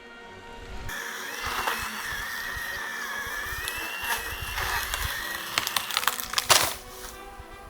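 Milwaukee M18 FUEL cordless hatchet chainsaw running with a steady high whine that sags slightly in pitch for a moment and recovers, with a few sharp knocks along the way.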